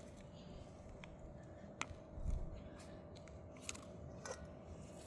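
Faint scattered clicks and scrapes of digging by hand in garden soil, with one soft low thump about two seconds in.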